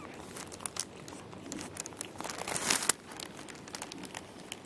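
Plastic sheeting crinkling and crackling under a cat as she shifts on it, in scattered small crackles with a denser, louder run of them about two to three seconds in.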